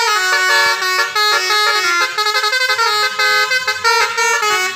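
Bus 'telolet' musical horn playing a fast melody: several horn tones sounding together, stepping up and down in pitch every fraction of a second without a break.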